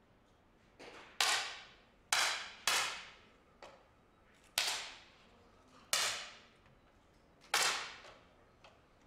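10 m air pistols firing: six sharp pops at irregular intervals over about seven seconds, each ringing out briefly in the hall, with a few fainter pops between them.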